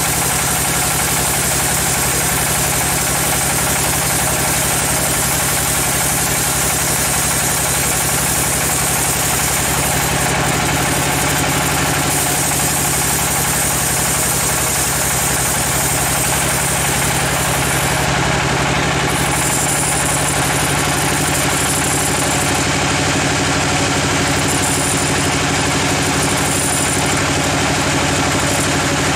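Large log band-saw mill running steadily while its blade rips lengthwise through a giant teak log: a constant machine hum under the dense, even rasp of the blade in the wood.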